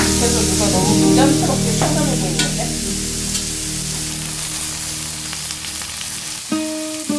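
Slices of steak sizzling on the hot steel griddle plate of a Balmuda The Plate Pro, a steady hiss. Several light clicks of tongs moving the pieces come in the first couple of seconds.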